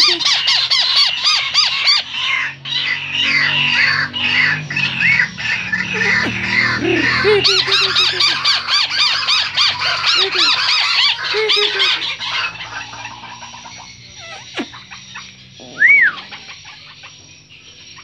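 White-browed crake calling: a loud, rapid chattering series of repeated notes that fades out after about twelve seconds, followed by a single rising-and-falling note near the end.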